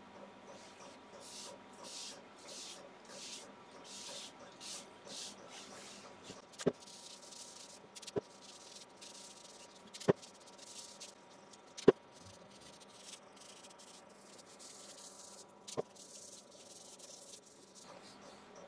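Paper towel rubbing dye onto a sanded sycamore bowl in soft, hissy strokes, about three every two seconds, through the first third. After that come a handful of sharp clicks, spaced a second or more apart.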